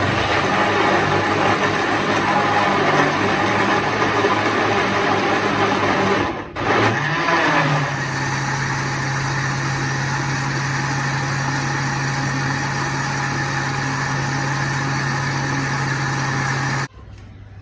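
Panasonic juicer-blender's motor running at full speed, blending guava pieces with sugar and water into juice. It starts abruptly, drops out briefly about six and a half seconds in, comes back with a short rise in pitch, runs steadily, and cuts off suddenly about a second before the end.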